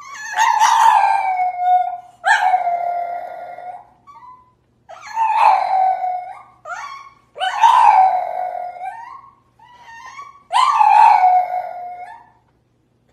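French bulldog howling with its head thrown back: five long howls, each sliding down in pitch, with shorter cries in the gaps between them.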